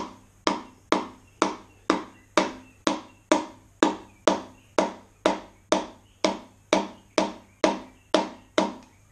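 Wooden hammer handle tapping a piston crown down through a ring compressor into the cylinder bore of a Jaguar MkII engine, with steady knocks about two a second. The tone does not change, the sign that the piston has not yet gone in: an oil ring is not quite in.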